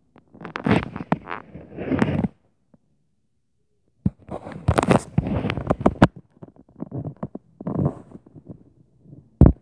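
Clusters of thumping, knocking and rumbling noise, each lasting about two seconds, with sharp knocks among them and a last hard knock near the end; the tenant attributes them to neighbours stomping on the floor above.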